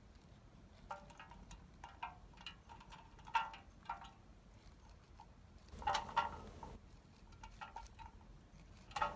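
A knife cutting kernels off a cob of fresh corn, the kernels dropping into a small aluminium can: a scatter of faint ticks and short tinny rings, the loudest about six seconds in.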